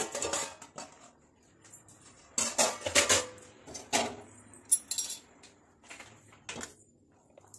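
Stainless steel pot and its metal lid clattering, with clinks and scrapes of metal on metal in several short bursts; the loudest cluster comes about two and a half to three seconds in.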